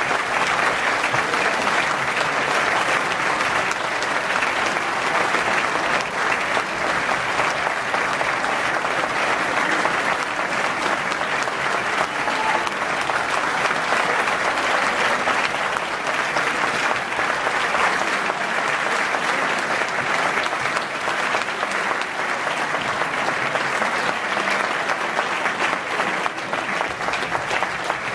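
Audience applauding steadily, a dense wash of many hands clapping with no break.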